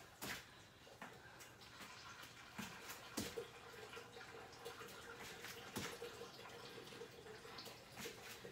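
Faint, irregular soft thuds of bare feet and hands landing on an exercise mat during tuck jumps and star jumps, over a faint steady hum.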